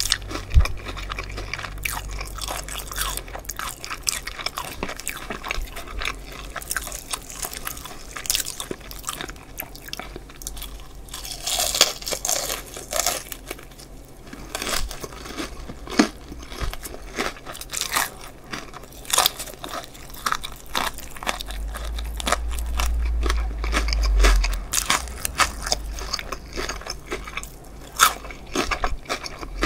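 Close-miked crunching and chewing of a crispy fried chicken drumstick: its battered crust crackles sharply with each bite, followed by wetter chewing. A low rumble lasts a few seconds about three-quarters of the way through.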